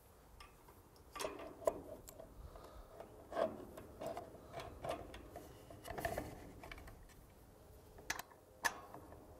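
Faint, irregular clicks, taps and light metallic clinks of small parts being handled: a header-height sensor and its spring being fitted onto a steel mounting bracket by hand.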